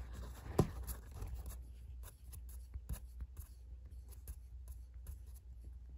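Handling noise from a clear plastic eyedropper fountain pen as the threaded end knob of its shut-off valve is unscrewed: one sharp click about half a second in, then faint ticks and rubbing. Unscrewing the knob lifts the stopper rod and opens the valve so ink can flow to the nib.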